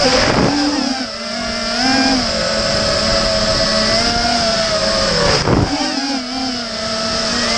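Whine of a THuG 220 FPV racing quadcopter's electric motors and propellers, heard from on board, rising and falling in pitch with the throttle as it banks and dives. Two brief rushes of noise cut across it, near the start and about five and a half seconds in.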